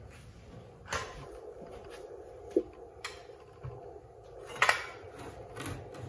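Scattered knocks and clatters from handling a pressure-treated 2x12 board and a corded circular saw, the loudest a double clatter about four and a half seconds in, over a faint steady hum. The saw is not running.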